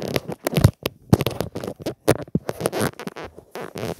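Handling noise: the recording phone's microphone rubbing and knocking against fingers and clothing, a run of irregular scrapes and thumps.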